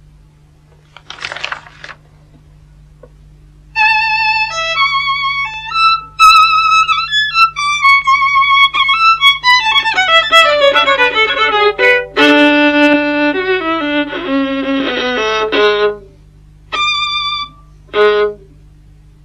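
Solo violin, bowed: after a short noisy sound about a second in, a fast, busy passage with descending runs and rapid flurries of notes. It breaks off abruptly a few seconds before the end, followed by two short bursts of notes.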